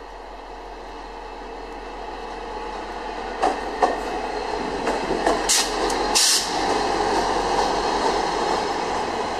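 VIA Rail passenger train passing close by, led by an F40PH-2 diesel locomotive: the running of engine and wheels grows louder as it approaches, then holds steady as the coaches roll past. From about three and a half seconds in, several sharp clicks from the wheels on the track stand out, the loudest of them just before the locomotive clears.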